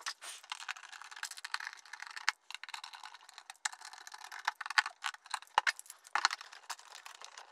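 Irregular small clicks and rattles of hand work: a screwdriver turning the screws of a clamp mounting plate into the underside of an electronic drum multipad, then the clamp's arm being handled.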